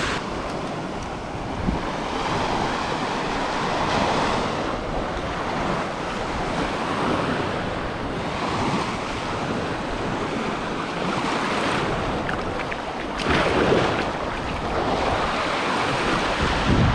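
Surf breaking and washing up the beach, the wash swelling and fading every few seconds, with wind buffeting the microphone.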